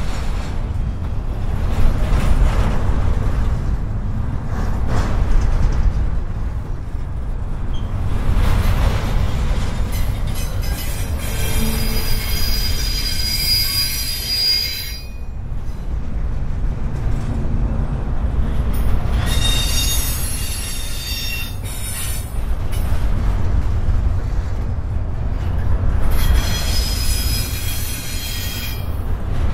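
Freight train rolling past with a steady low rumble, its wheels squealing high-pitched three times: a few seconds each, starting about eleven, nineteen and twenty-six seconds in.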